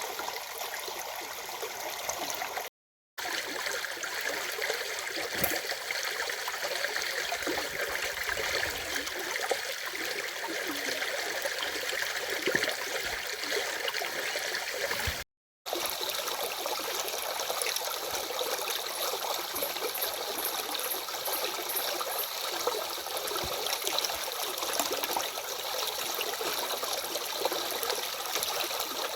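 Stream water running steadily, a continuous rushing hiss. It cuts to silence for a split second twice, about 3 seconds and about 15 seconds in.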